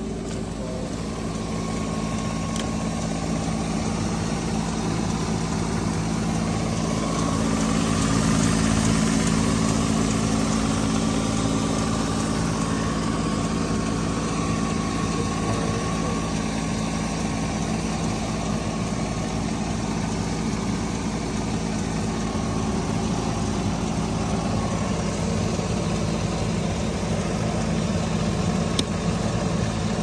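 Pickup truck engine idling steadily, heard at the open hood.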